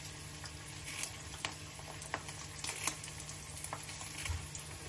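Eggs frying in a pan with a steady, soft sizzle, and several sharp little clicks of kitchen scissors snipping green onions over the pan.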